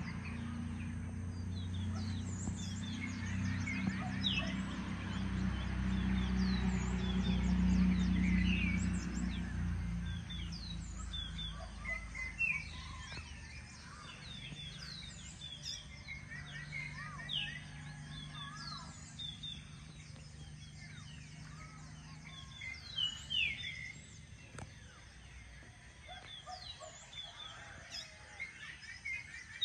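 Many small birds chirping at dawn, with short high calls coming throughout. Under them runs a low drone that is loudest in the first ten seconds and then fades.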